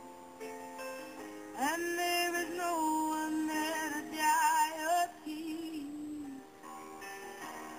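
A pop song playing, with a sung voice coming in about one and a half seconds in and holding wavering notes. The song was played on a laptop and recorded on a phone, so it sounds poor in quality.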